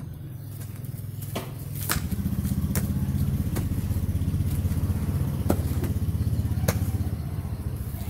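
An engine running steadily, its low rumble getting louder about two seconds in, while a hoe chops into the soil with a handful of sharp knocks about a second apart.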